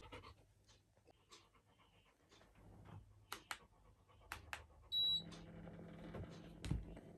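Split air conditioner beeps once as the remote switches it on, and its indoor fan then starts with a steady low hum. Before that there is a dog's soft panting and a few sharp clicks, and a low thump comes near the end.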